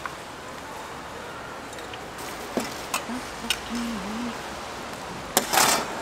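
Scattered light clicks and clinks of kitchen utensils and dishes being handled, over a steady background hiss. A louder brief scrape or rustle comes near the end.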